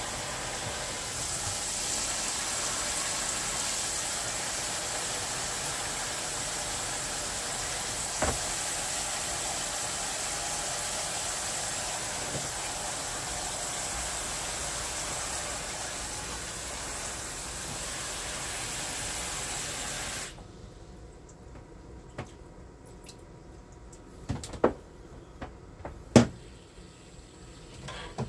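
Water running steadily into the tub of a portable washing machine, filling it for a wash. The flow cuts off suddenly about two-thirds of the way through, and a few short knocks follow near the end.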